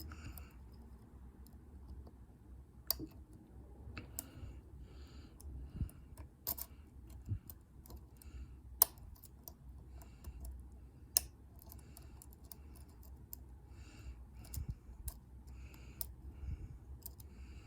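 Dimple lock pick and tension wrench working the pins of a dimple-key Euro cylinder: scattered small metallic clicks and light scraping, with a few sharper clicks about 3, 9 and 11 seconds in.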